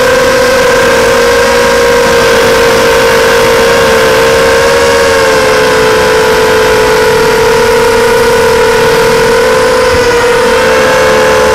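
FPV racing quadcopter's brushless motors and propellers, heard up close from the onboard camera: a loud, steady high-pitched buzz whose pitch wavers slightly.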